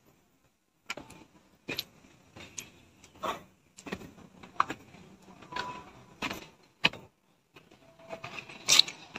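Footsteps going down stone steps: an uneven series of short scuffs and taps, roughly one every half second to a second.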